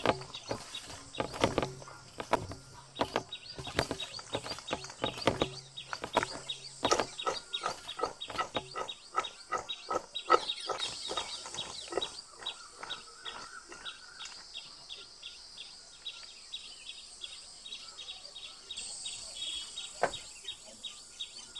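Fried eggplant slices tossed and mixed by hand in a stainless steel bowl, a run of quick soft clacks and slaps. After about ten seconds this gives way to birds and insects chirping, a fast, even ticking chirp, with one sharp click near the end.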